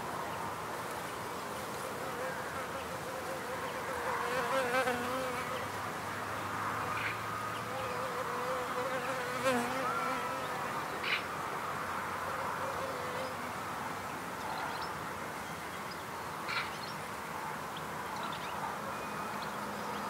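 Wild bees buzzing in flight around their nest. The buzz wavers in pitch and swells as bees pass close, with a few short ticks.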